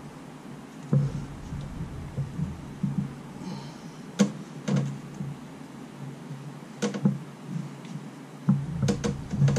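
Hands working plastic wiring connectors and hoses at the back of an engine bay, several sharp clicks and knocks at irregular intervals as a hidden locking connector is felt for and pushed.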